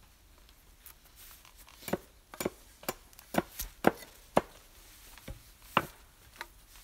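Hatchet chopping into the end of a peeled wooden pole to cut a wedge-shaped chamfer: a string of sharp, separate chops starting about two seconds in, roughly one every half second.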